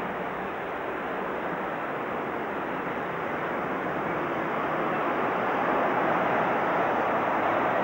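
Heavy surf breaking on the shore, a steady rushing noise that grows louder from about five seconds in.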